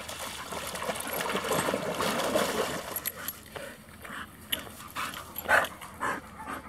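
Dogs splashing through shallow water, then short dog vocal sounds such as whimpers and yips as they come out on the bank. The loudest is a single sharp one about five and a half seconds in.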